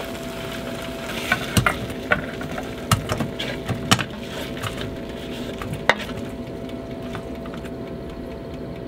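Hot chicken wings sizzling in an air fryer basket, with a steady hum. Several sharp clicks and knocks of handling come between about one and six seconds in, then it settles.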